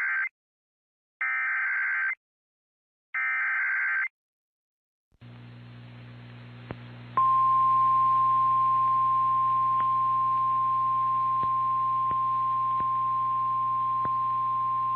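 Emergency Alert System SAME header: three buzzy digital data bursts about a second long each, a second apart, the first already under way. After a short silence, receiver hiss and hum come up with a few clicks, and about two seconds later the steady 1050 Hz NOAA Weather Radio warning alarm tone starts and holds.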